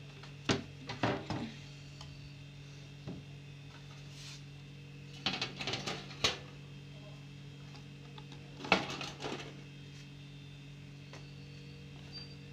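Irregular metallic taps and rattles on a wire bird cage, in a few short clusters, over a low steady hum.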